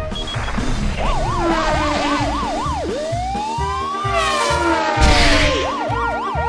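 Siren sound effect, first wailing quickly up and down, then making one slow rise and fall, then quick up-and-down wails again. Background music with a steady beat plays underneath, and there are two short whooshes in the middle.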